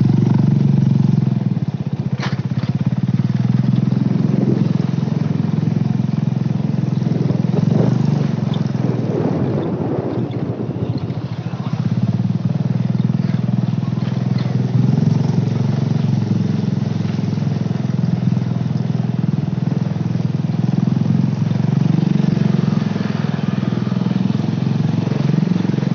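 Motorcycle engine running steadily while being ridden, heard from on the bike as a continuous low drone.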